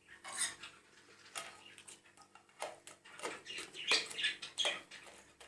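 Hands and a knife working bitter oranges: a run of short, irregular scrapes and clicks, loudest around four seconds in.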